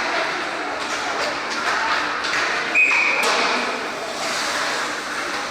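Ice hockey game sounds in an arena: echoing rink noise with scattered knocks of sticks and puck, and voices in the stands. A short, steady high tone sounds about three seconds in.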